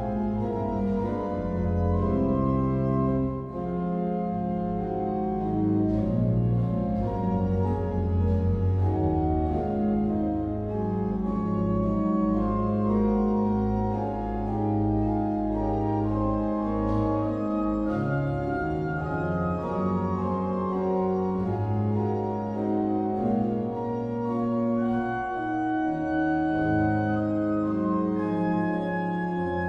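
Smits pipe organ playing a classical piece in full sustained chords over a moving bass line.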